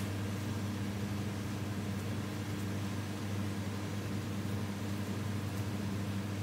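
A steady low mechanical hum with a constant hiss over it, and a few faint ticks.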